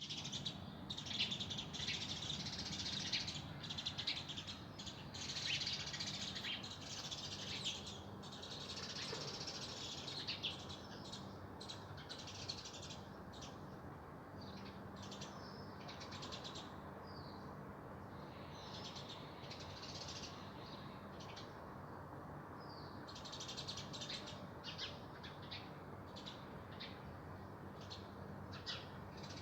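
Several small songbirds chirping and singing in a busy chorus of short, high notes and trills, thickest in the first ten seconds, thinning out in the middle and picking up again near the end. A steady low background hum runs underneath.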